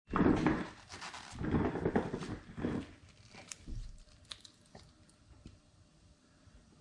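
Handling noise from two wristwatches and their straps being picked up and held close to the microphone. There are rubbing and rustling scuffs for the first few seconds, then a few light clicks and knocks.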